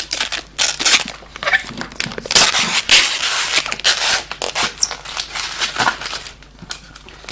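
Clear protective plastic film being peeled off a new external hard drive's glossy casing: irregular crinkling and tearing, densest in the middle.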